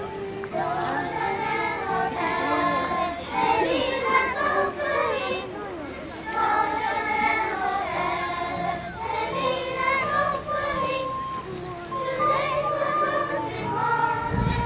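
Young children singing together in unison, a simple song carried by many small voices.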